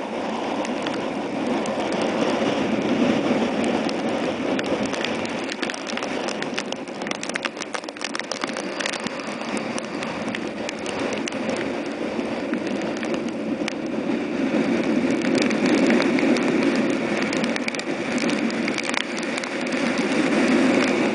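Driving rain and hurricane-force wind beating against a car, heard from inside. The noise swells with the gusts, and raindrops tick sharply on the glass.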